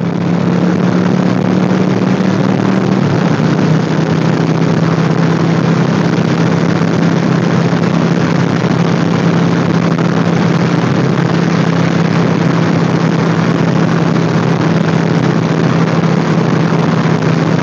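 Motorcycle riding at speed: loud, steady wind rush over the rider's microphone with the engine's low, even drone beneath it, its pitch dropping slightly about three seconds in.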